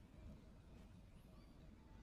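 Near silence: a faint low rumble with a few faint short high chirps.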